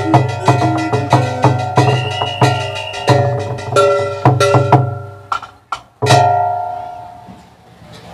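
Basak theatre ensemble music: drum strokes under struck, ringing pitched percussion at about two beats a second, thinning out and dying away about five seconds in. A single final stroke rings out about six seconds in and fades slowly.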